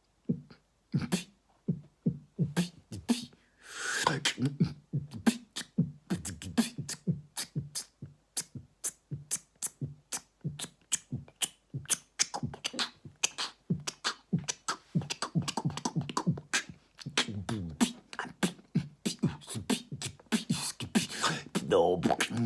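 A man beatboxing: rapid mouth-made kick thumps, snare pops and clicks in a steady fast rhythm, with a couple of longer held vocal noises mixed in, one a few seconds in and another near the end.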